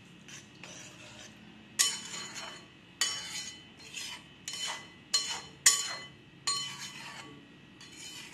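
Spatula stirring tomatoes and sugar syrup in a metal kadai. It starts with soft scraping, then from about two seconds in knocks against the pan's side in repeated ringing clinks, about two a second.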